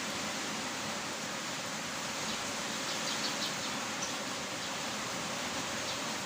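Heavy rain falling steadily, an even, unbroken hiss. A few faint, quick high ticks sound about halfway through.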